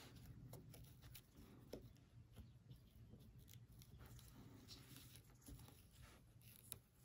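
Near silence, with faint rustling and small scattered clicks of hand-sewing: a needle and thread being worked through zipper tape and crochet fabric.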